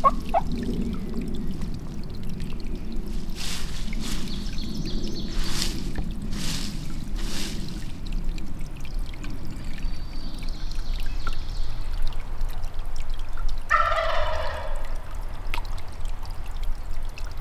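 A wild turkey gobbler gobbles once about 14 seconds in, a short rapid rattling call, over a steady low rushing background.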